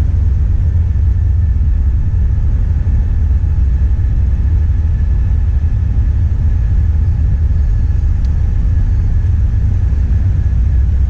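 Steady, loud low rumble of outdoor background noise with no distinct events, such as wind on the microphone or distant traffic.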